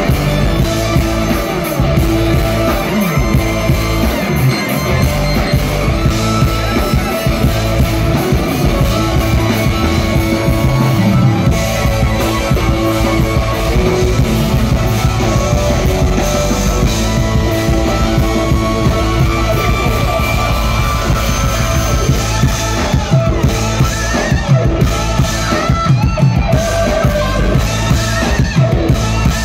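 A rock band playing live: electric guitars, bass guitar, keyboards and a drum kit together at full volume.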